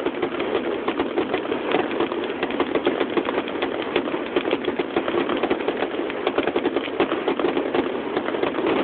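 Fireworks finale barrage: many shells going off in quick succession, a dense, continuous crackle of sharp pops.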